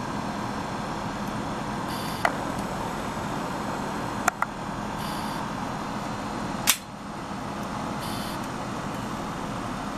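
Steady background noise with a few short, sharp cracks: one a little after two seconds, a quick pair just after four seconds, and the loudest about two-thirds of the way through.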